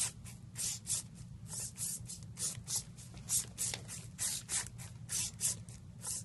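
Small four-legged servo-driven walking robot stepping across carpet: quick, evenly repeated hissing bursts from its servos whirring and its feet scuffing, about three a second, over a steady low hum.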